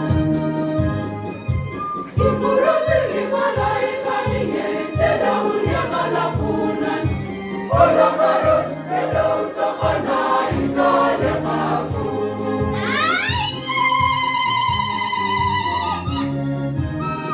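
Choir singing a Christmas carol over electronic keyboard accompaniment with a steady bass beat. About thirteen seconds in, a high part slides upward into a long, wavering held note.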